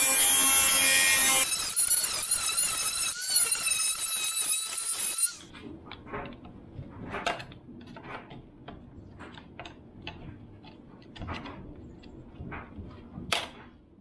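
Electric angle grinder with a cutting wheel grinding through a steel motorcycle drive chain jammed against the front sprocket, a loud, high-pitched grinding. About 1.5 s in it eases off and runs lighter, then stops abruptly. After that come scattered light metallic clicks and taps as a hand tool works at the chain and sprocket, with one sharper click near the end.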